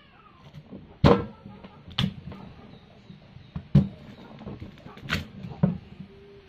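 A kitchen knife cuts slices from a peeled sweet potato and knocks against a wooden cutting board. There are five sharp knocks at uneven intervals.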